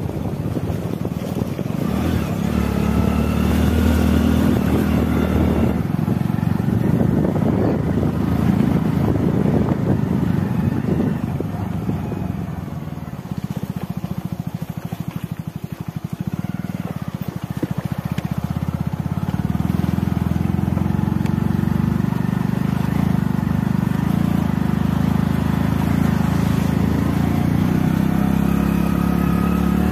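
Small motorbike engine running on the move. About halfway it eases off and there is rattling over a potholed, broken stretch of road, then it picks up again and runs evenly.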